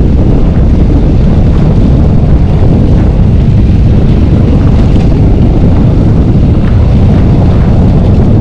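Steady, loud wind rumble on the microphone from riding a Yamaha sport motorcycle, with the bike's engine running underneath.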